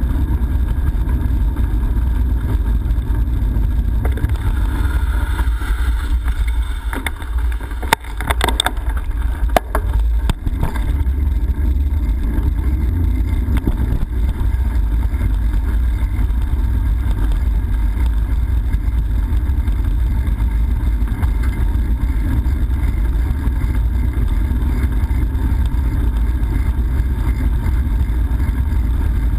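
Steady wind buffeting the microphone of a GoPro on a moving bicycle, a loud low rumble. It eases for a few seconds about a third of the way in, and a few sharp knocks come through.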